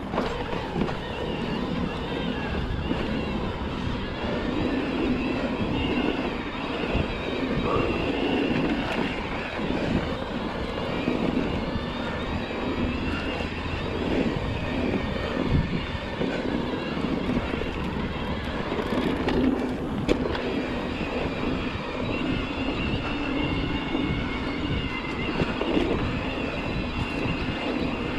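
Electric mountain bike ridden over a dirt trail: a steady wavering motor whine over tyre rumble, with frequent small rattles and knocks as the bike goes over bumps.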